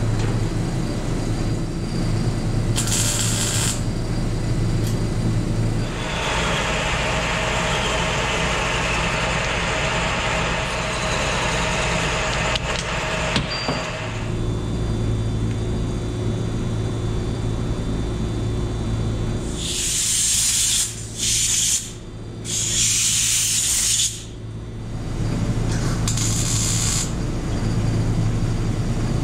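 MIG welder tack-welding steel square tubing: several short bursts of crackling hiss in a row about two-thirds of the way through, over a steady electrical hum. A longer stretch of shop machine noise comes earlier.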